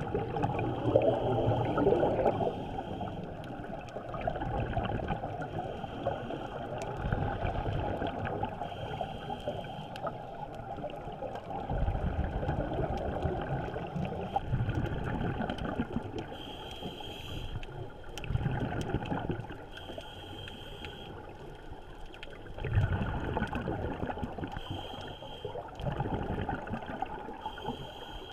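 Scuba regulator breathing heard underwater: a short hiss on each inhale, then a bubbling gurgle of exhaled air, repeating every few seconds.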